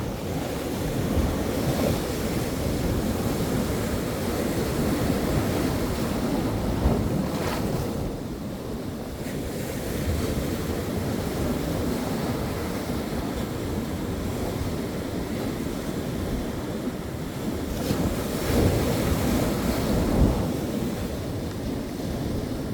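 Ocean surf: waves breaking and washing in a continuous rush that swells and eases, with bigger surges about seven seconds in and again near eighteen to twenty seconds. Wind buffets the microphone, adding a low rumble.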